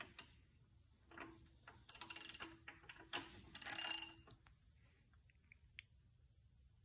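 Faint metallic clicking and rattling in a few short bursts during the first four seconds, from tools on the engine as the crankshaft is turned by hand to bring the cam lobe back to maximum lift, followed by a few light ticks.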